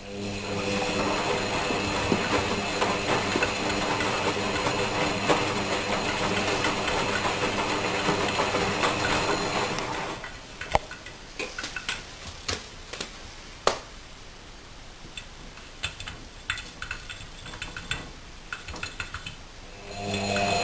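Washing machine running with a steady motor hum and a rushing sound of the drum turning, which stops about halfway through; the second half is quieter, with scattered sharp clicks and knocks, before the machine starts up again right at the end.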